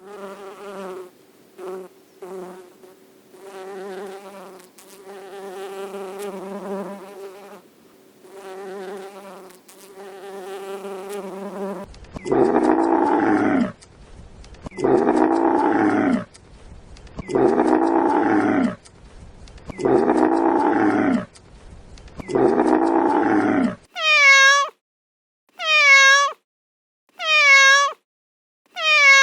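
A run of different recorded animal calls: first a series of fainter, repeated pitched buzzing calls, then five loud drawn-out calls about two and a half seconds apart, and near the end short, evenly spaced cat meows.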